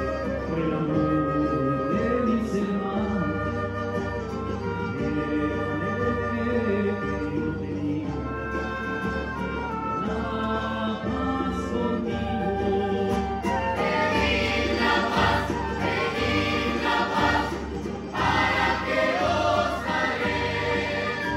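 Live choir of men's and women's voices singing a Neocatechumenal Way hymn, accompanied by flute, classical guitars and cellos. The music swells fuller about two-thirds of the way through, dips briefly, then swells again near the end.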